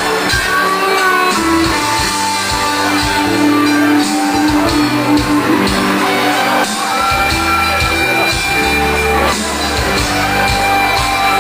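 Live pop band playing on stage: drums, bass and sustained melodic notes, with guitar.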